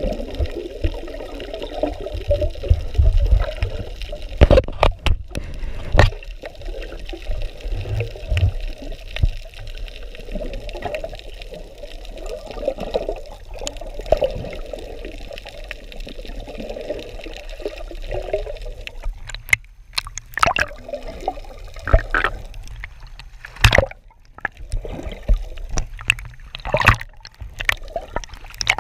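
Muffled water sloshing and gurgling, with scattered clicks and knocks, more of them in the last third.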